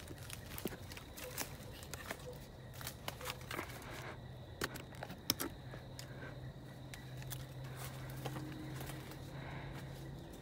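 Dry twigs and leaf litter crackling and snapping underfoot and against the brush, in irregular small cracks and crunches with no steady rhythm.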